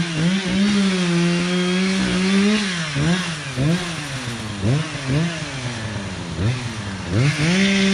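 Two-stroke Echo saw engine revved in repeated throttle blips, about one a second, its pitch rising and falling. It is held at high revs for a couple of seconds about a second in and again near the end.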